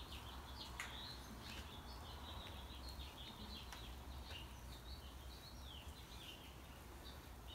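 Faint small-bird chirping, many short calls, over a steady low hum, with a few light ticks.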